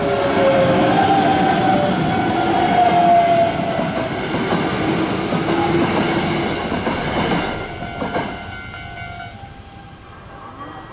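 Hanshin Railway electric train passing close through a level crossing: loud rumble and wheel noise with tones sliding downward, falling away about eight seconds in. The crossing's warning bell keeps ringing after the train has gone.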